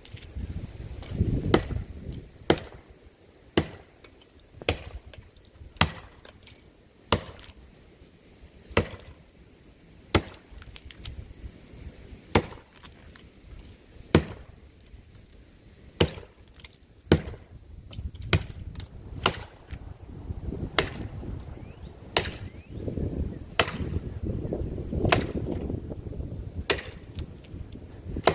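Axe chopping into a dead, dry pine tree: a long run of sharp, woody blows, roughly one every second or so, with a few short pauses between strokes.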